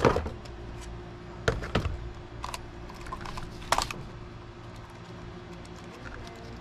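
Handling of a small RC truck and its packaging during unboxing: a few separate sharp clicks and knocks. The loudest comes right at the start, and others fall about a second and a half, two and a half, and nearly four seconds in.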